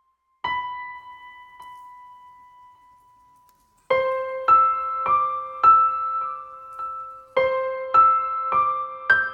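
Soft piano music: a single note rings out and fades, then a slow, gentle melody of single struck notes, about one every half second, begins about four seconds in.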